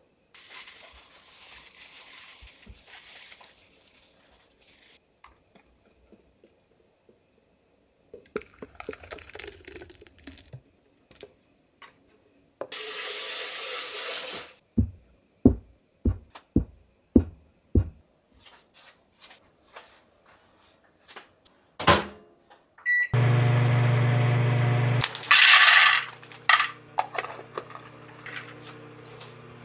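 Kitchen work with glass bowls: scattered clinks and clatter, a short burst of noise, then a quick run of about six dull knocks. In the last few seconds, steady background music of sustained low chords.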